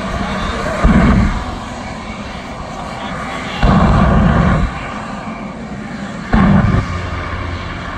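Jet engine mounted on a pickup truck running steadily, with three sudden loud bursts as it shoots out flame: a short one about a second in, a longer one of about a second near the middle, and a short one near the end.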